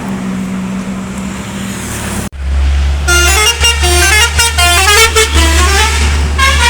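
Bus engine running with a steady hum, cut off abruptly a little over two seconds in. About three seconds in, a Basuri telolet musical air horn starts playing a quick tune of several tones at once, stepping up and down in pitch over the bus's deep engine rumble.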